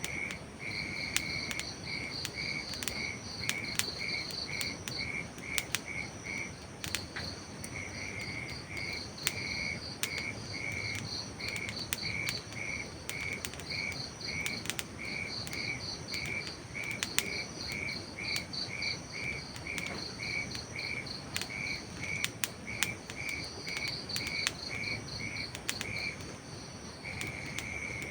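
A cricket chirping steadily, about two to three chirps a second, with a short pause about seven seconds in. Scattered sharp crackles, like a campfire's, and a steady hiss sit underneath.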